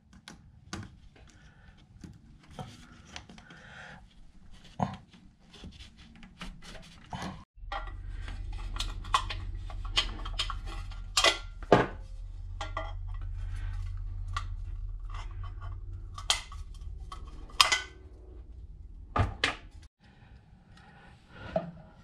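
Small plastic and metal wiring parts handled by hand: crimp spade connectors pushed onto terminals and hardware picked up, giving scattered light clicks and clinks. A steady low hum runs underneath for most of the middle, starting and stopping abruptly.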